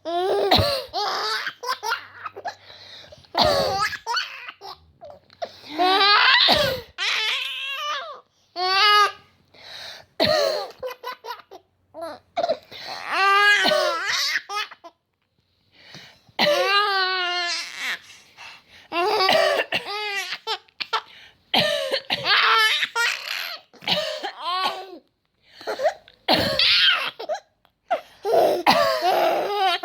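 Baby boy laughing in many high-pitched bouts, each a second or two long with short pauses between, set off by his mother coughing; her coughs come between the laughs.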